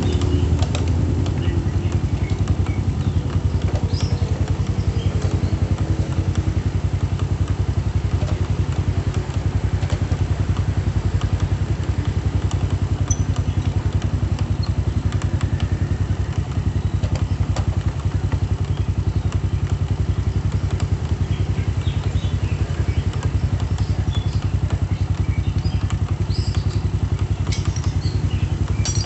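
Honda Supra motorcycle's single-cylinder four-stroke engine idling steadily with a fast, even beat.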